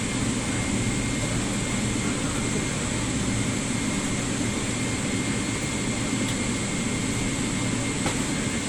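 Steady cabin drone inside a Boeing 777-300 airliner: jet engine and airflow noise, even and low, with a faint thin high whine running through it.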